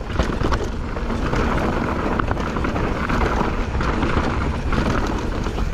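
Mountain bike descending fast on a dirt trail: wind rushing over the microphone, tyres running over dirt and rocks, and short rattles and knocks as the bike hits bumps.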